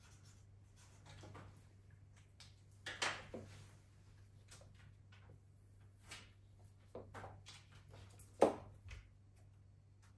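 Scattered small knocks, clicks and rustles of things being handled on a desk, with two louder knocks about three seconds in and near the end, over a steady low hum.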